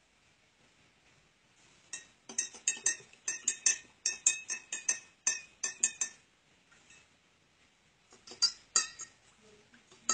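A metal spoon clinking against a drinking glass of water in quick, sharp taps, about four a second for some four seconds, then a few more near the end, as the water is stirred.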